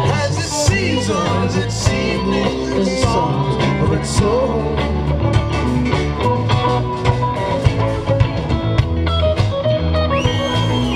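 A live band playing amplified blues-rock, led by electric guitar over steady drum hits, with a lead line bending and wavering in pitch near the end.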